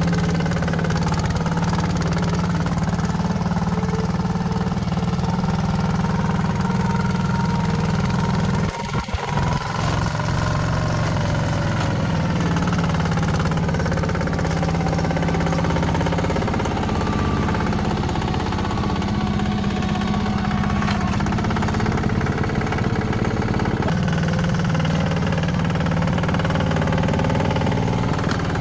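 Heavy machinery's diesel engine running steadily, with a brief dip about nine seconds in.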